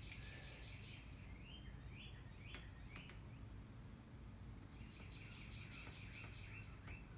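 Faint bird song: three runs of quick repeated chirps, over a low steady hum, with a faint click or two near the middle.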